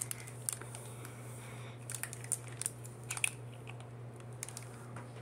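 Plastic sports-drink bottle being handled and its cap twisted open: scattered small clicks and plastic crinkles, thickest about two to three seconds in.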